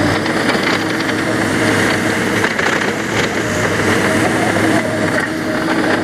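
John Deere 260 skid steer's diesel engine running at a steady drone while the machine grades a dirt track with its bucket down.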